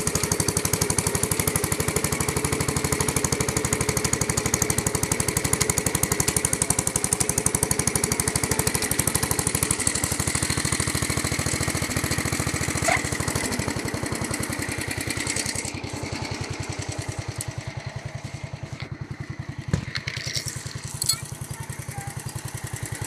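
Small lawn tractor engine running with a rapid, even firing beat, growing fainter after about fifteen seconds as the tractor rolls away with no one on it. A few sharp clicks come near the end.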